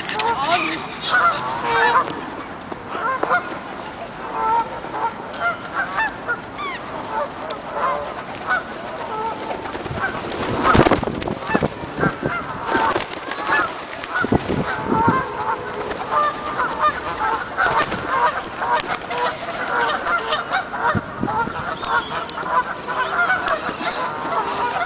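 A large flock of birds calling continuously, with many short calls overlapping one another. A few thumps break in, the loudest about eleven seconds in.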